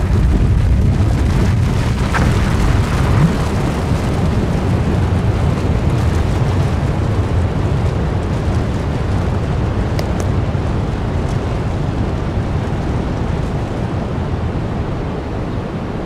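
Deep, steady rumbling of a volcanic eruption sound effect, easing slightly toward the end.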